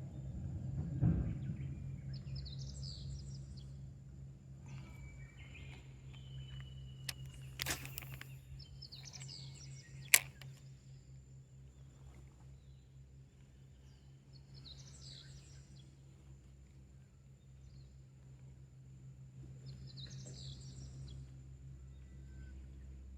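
Small birds calling in short bursts every few seconds over a low, steady background hum, with one sharp click about ten seconds in.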